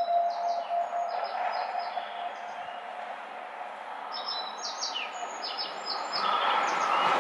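Small birds chirping in two quick bursts of short, high notes, one in the first two seconds and another from about four to six seconds in. Near the end an approaching Odakyu 30000-series EXE Romance-car train grows steadily louder.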